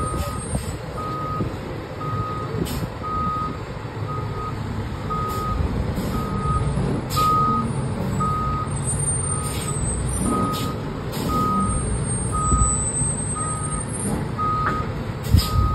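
A fire rescue truck's backup alarm beeping steadily, about twice a second, over its engine running as it reverses while towing a boat trailer. A brief low thump near the end.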